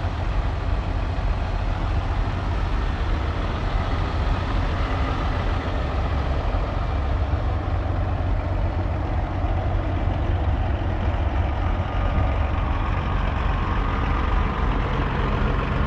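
Heavy diesel truck engine idling, a steady low-pitched running sound that does not change.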